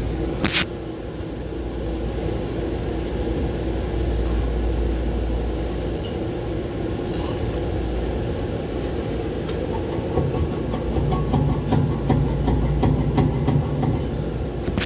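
Condenser fan motors running with a steady low drone and hum, their failing bearings giving a rough, rattling clatter that grows stronger about ten seconds in. A brief high squeal sounds right at the start. The roughness is the sign of bad fan bearings.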